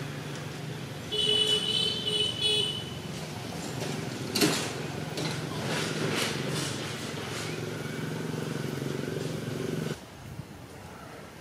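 A steady low hum like a running motor vehicle engine, with a short pulsing high-pitched tone a little over a second in and a sharp knock near the middle. The hum drops away suddenly near the end.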